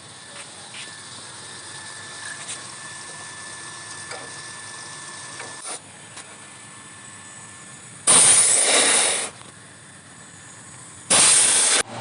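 Two loud bursts of hissing gas blown out under pressure: one about a second long, then a shorter one near the end. Faint clicks and handling sounds come before them.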